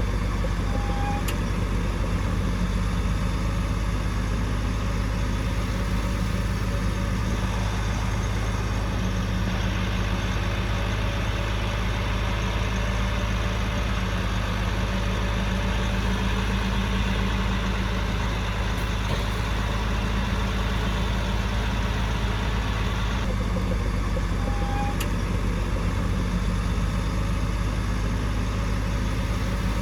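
Heavy diesel engine of earthmoving equipment running steadily at an even speed, with no revving. A brief high beep sounds about a second in and again near the end.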